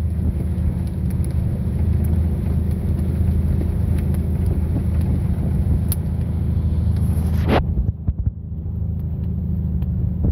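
Boat's diesel engine running steadily with a deep rumble, heard from on board with wind noise on the microphone. A sharp click comes about three-quarters of the way through, after which the hiss above the rumble drops away.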